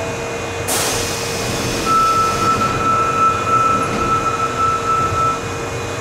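Osaka Metro 21 series subway train standing at the platform ready to depart, with a steady electrical hum. About a second in comes a sudden hiss of air, which fades away. Then a steady high beep lasts about three and a half seconds.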